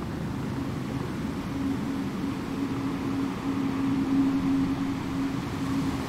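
Low wind rumble with a distant engine's steady hum, a single held tone that comes in about a second and a half in and stays.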